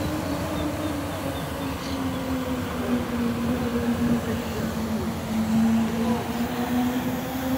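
Model steam launch's small steam engine running: a steady hum that sinks slowly in pitch, over a hiss.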